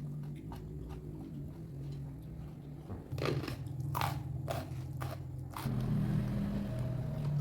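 Close-miked crunchy bites and chewing of raw food, with a cluster of sharp crunches in the middle.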